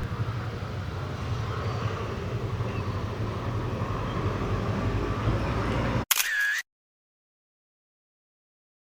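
Steady low rumbling background noise, with a short high tone about six seconds in, then an abrupt cut to dead silence.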